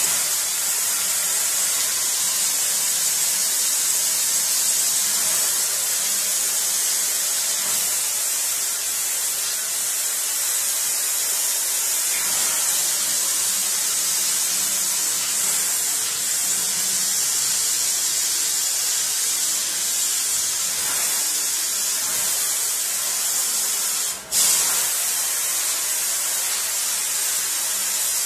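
Water jetting steadily from a hand-held sink sprayer onto a paper print in a stainless steel sink, rinsing the excess oil paint off a gum oil print. A steady hiss that breaks off for an instant about 24 seconds in, then carries on.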